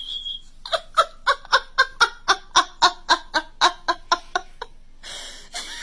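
A voice giving a rapid, even run of about fifteen short laugh-like pulses, about four a second, that stops after about four seconds.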